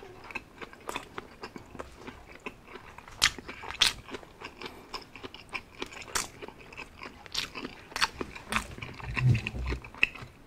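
Close-miked chewing of a mouthful of a Jollibee Aloha Champ burger (beef patty, pineapple ring and cheese): a run of short, sharp wet mouth clicks at an uneven pace, with a low rumble near the end.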